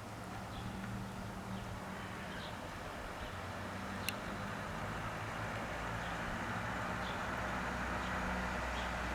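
A motor vehicle's engine running with a steady low hum, growing gradually louder, with faint bird chirps above it and a single sharp click about four seconds in.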